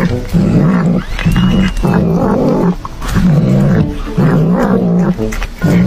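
A cat giving a string of short, low growls, one after another, as it chews corn off the cob.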